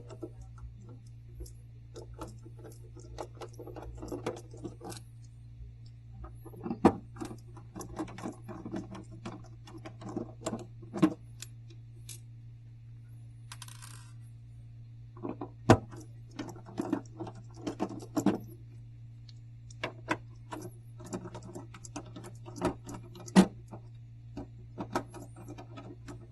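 Hex-bit screwdriver working the screws out of the back of a Xerox Phaser 8560 printer: scattered metallic clicks, taps and rattles over a steady low hum.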